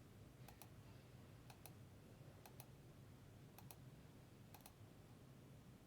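Faint computer mouse clicks, a quick double click about once a second, six times over, as a list is randomized over and over.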